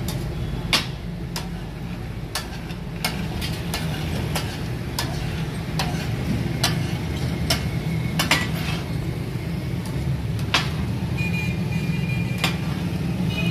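Metal spatulas striking and scraping a large flat iron griddle (tawa) as brain masala taka tak is chopped and turned, over the sizzle of frying food. The clanks are sharp and irregular, about one every half second to a second, over a steady low hum.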